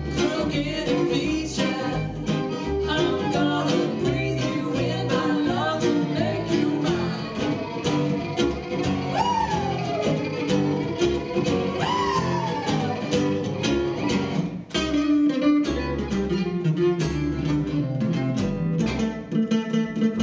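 Live acoustic string band playing: violin, two strummed acoustic guitars and upright bass. Two falling, sliding notes sound near the middle. About fifteen seconds in the music breaks off for a moment, then comes back with heavier guitar strumming and bass.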